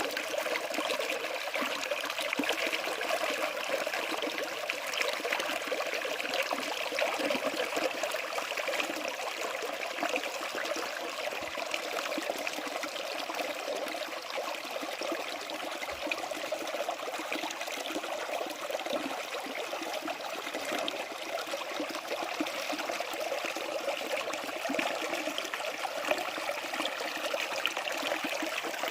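Mountain stream flowing over rocks, a steady splashing and gurgling rush of water.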